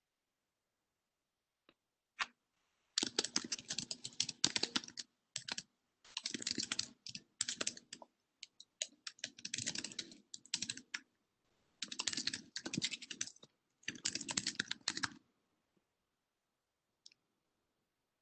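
Typing on a computer keyboard: several runs of rapid keystrokes, each lasting a second or two, with short pauses between them, heard through a video-call microphone.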